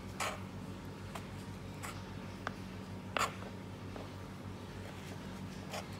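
Kitchen knife dicing a tomato on a plastic cutting board: short, sharp knocks of the blade striking the board at irregular intervals, about one a second, the loudest about three seconds in.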